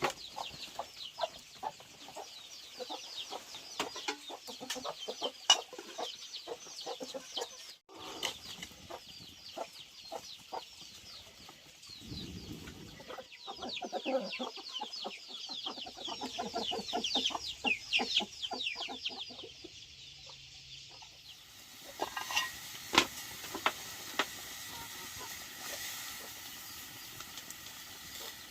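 Domestic chickens clucking, with many quick high cheeps and scattered light knocks.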